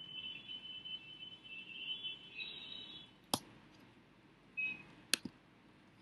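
Computer mouse clicks: a single click about three seconds in and a quick double click near the end. Under them is a faint high warbling sound that stops about three seconds in.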